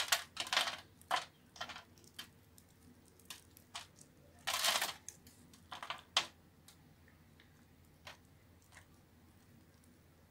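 A utility-knife blade slicing the cubes off a pre-scored bar of Lifebuoy soap; each cut is a short, crunchy scrape as small soap cubes break away. There is a quick run of cuts in the first two seconds, a longer scrape a little before the middle, and then only a few faint ones.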